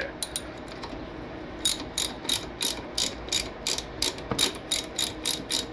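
Socket ratchet with a 5/8 socket clicking as it backs out a motorcycle engine oil drain plug: a few light clicks, then from about one and a half seconds in a steady run of clicks, about three a second.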